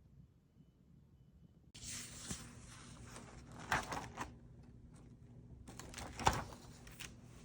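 A steady low hum starts about two seconds in, with several sharp knocks and clatters on top of it, the loudest two about four and six seconds in.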